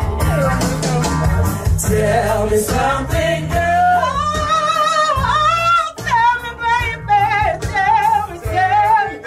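A woman singing into a microphone over instrumental backing, with vibrato and long held notes, climbing to a high sustained line about four to six seconds in.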